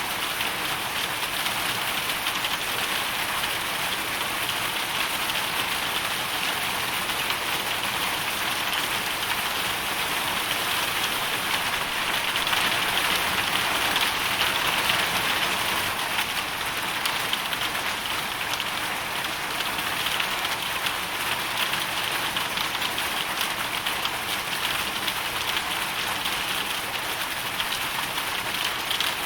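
Hailstorm: a dense, steady patter of hail and rain striking a surface, swelling slightly about halfway through.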